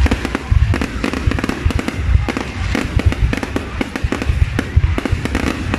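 Fireworks going off in a dense barrage: rapid sharp cracks, several a second, over repeated deep booms.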